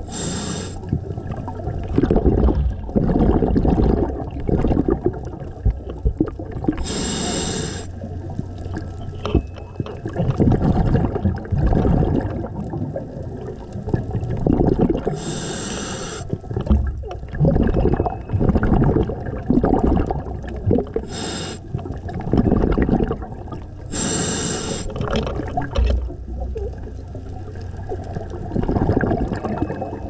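Scuba diver breathing through a regulator underwater: five short, sharp hisses as air is drawn in, several seconds apart, with rumbling, gurgling exhaust bubbles in between.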